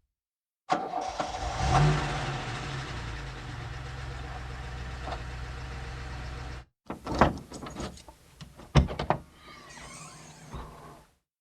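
A car engine starting and settling into a steady idle, then cut off abruptly. After a brief gap come a few sharp clicks and knocks over quieter background sound.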